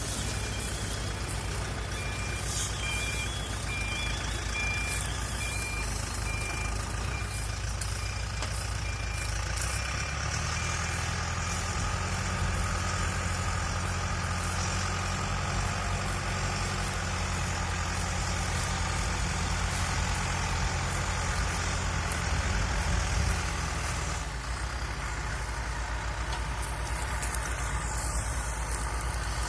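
Tractor engine running as it pulls a Fimaks RB170 round baler at work, with a repeating electronic beep during the first dozen seconds. The engine note rises about a third of the way in and drops back near the end.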